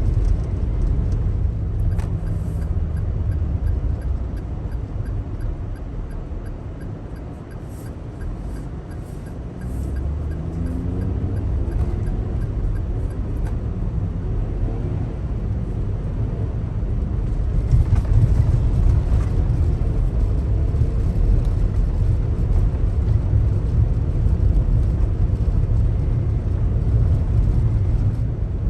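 Daihatsu Taft kei car driving on a snowy road: a steady low rumble of engine and tyres, easing off briefly about a quarter of the way in, then building again with a rising engine note as it picks up speed.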